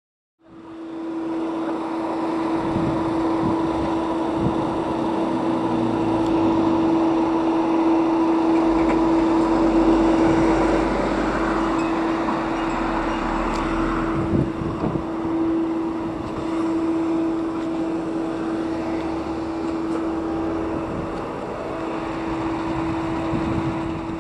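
Fire engine (a pump tender) driving past on a town street: engine and road noise, swelling as the truck passes close about halfway through, over a steady unbroken tone.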